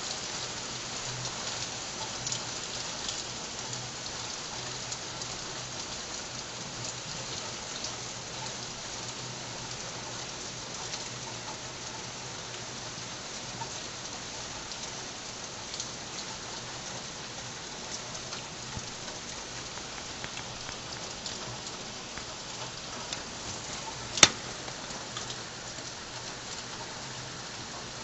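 Tropical-storm rain falling steadily, a continuous hiss flecked with many small drop ticks. A single sharp click about 24 seconds in is the loudest sound.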